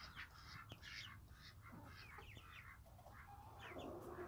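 Chickens on the roost making faint, soft calls: many short high chirps falling in pitch, with a couple of longer, lower calls near the end.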